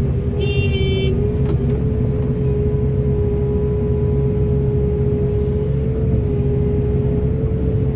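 Heavy diesel engine of large earthmoving machinery running steadily with a deep drone. A short high-pitched tone sounds about half a second in.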